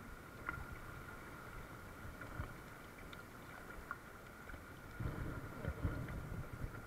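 Steady rush of a shallow, fast stream running over a rocky bed, with low buffeting of wind on the microphone from about five seconds in.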